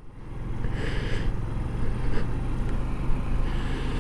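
1993 Yamaha Riva 125 scooter under way: its single-cylinder four-stroke engine running steadily with wind and road noise, the level building up over the first second.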